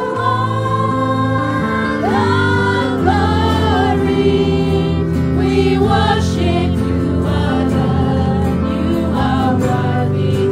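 Gospel music with singing voices over a sustained bass line.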